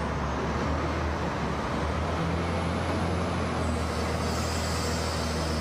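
Wheel loader's diesel engine running steadily as its bucket pushes into a heap of soybean meal, a constant low hum under an even machinery noise.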